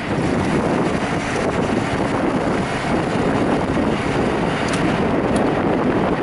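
Diesel fuel rushing through a truck-stop pump nozzle into a semi truck's fuel tank, a steady noisy rush.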